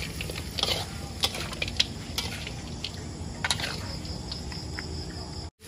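Civet meat frying quietly in a wok, with scattered clicks of a metal spatula, and crickets chirping in the background. The sound cuts out for a moment near the end.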